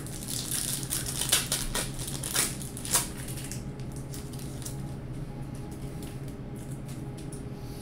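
Trading-card pack wrapper crinkling and tearing as it is ripped open by hand, with a few sharp crackles in the first three seconds.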